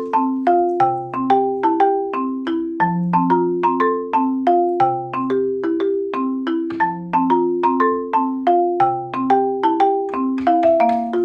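Background music: a light, steady tune of plucked or struck notes in a marimba-like tone over a simple bass line.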